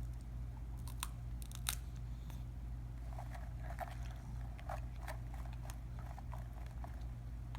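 Small child chewing crunchy snacks: scattered crisp crunches, a few in the first two seconds and a busier run in the middle, over a steady low hum.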